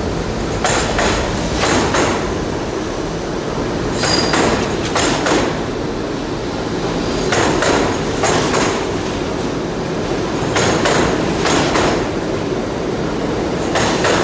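NYC subway D train's stainless-steel cars rolling past a platform at a steady pace. The wheels give a quick clack-clack over a rail joint for each truck, two trucks per car, so the pattern repeats about every three seconds over a continuous rumble.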